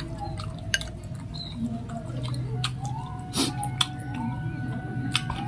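Eating meatball soup: chewing and small mouth sounds, with a few sharp clinks of a metal spoon and fork against a glass bowl.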